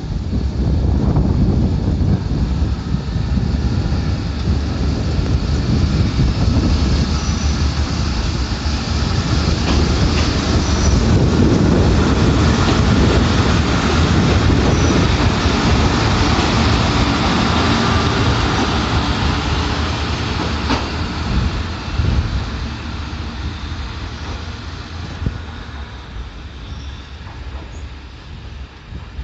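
A two-car Kominato Railway KiHa 200-series diesel railcar train pulling away from the station and passing close by, its engine running under power along with the rumble of its wheels on the rails. It grows louder to a peak around the middle, then fades steadily as the train draws away.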